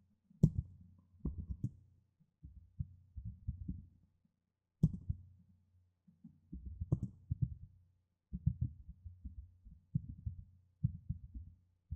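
Computer keyboard being typed on in short runs of dull keystrokes, with pauses of under a second between the runs.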